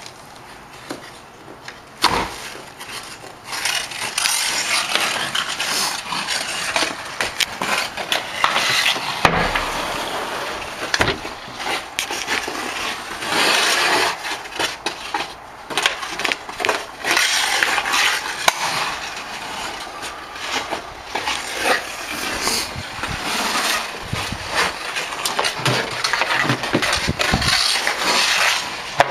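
Hockey skate blades scraping and carving across rink ice in long strokes, with sharp clacks of a hockey stick on pucks and ice. A loud knock comes about two seconds in.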